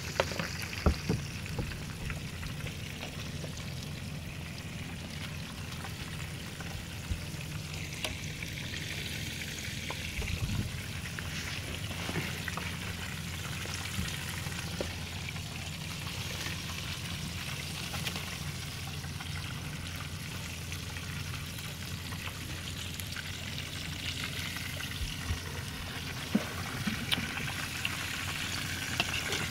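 Whole fish frying in a pan of hot oil on a portable gas burner: a steady sizzle with scattered crackles and pops. There are a few sharp clicks near the start and again near the end.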